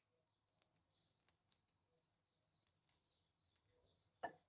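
Near silence with faint sticky clicks, then, about four seconds in, one short soft squelch as a hand presses into a lump of homemade slime on a countertop.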